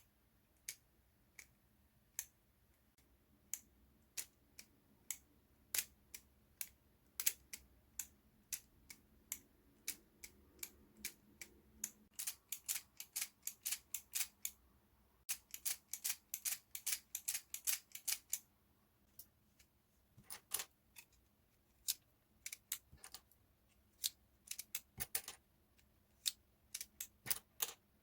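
Sharp plastic clicks and snaps of a LEGO Technic single-action revolver's mechanism being worked over and over, irregularly spaced, with quick runs of clicks about halfway through and again near the end.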